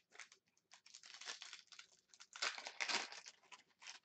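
Upper Deck Synergy hockey card pack wrapper crinkling as it is torn open and pulled off the cards. It comes in irregular bursts, loudest about two and a half to three seconds in.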